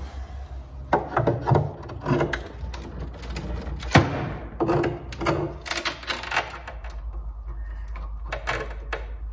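A hammer tapping a flat prying blade into a glued joint of an old wooden cabinet frame to work the piece loose. It gives a series of irregular sharp knocks, the loudest about four seconds in.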